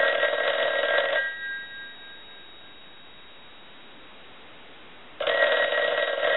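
Western Electric 354 rotary wall telephone's bell ringing on a ring cycle. A burst of ringing stops about a second in and dies away, and after a few seconds' pause the bell rings again about five seconds in. The phone's bell circuit has just been repaired and adjusted, and the phone now rings in properly.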